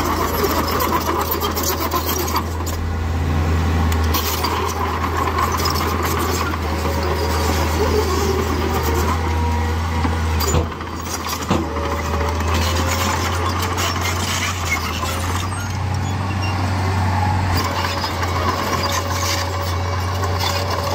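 Diesel engine of heavy earthmoving machinery running steadily under load, with a faint steady whine and repeated metallic clanks. A sharp knock comes about ten and a half seconds in, followed by a brief dip in level.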